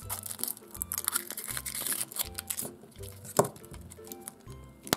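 Foil wrapper of a Kinder Surprise chocolate egg crinkling and tearing as it is peeled off, then one sharp crack about three and a half seconds in as the chocolate shell is broken open. Background music with a repeating bass line plays throughout.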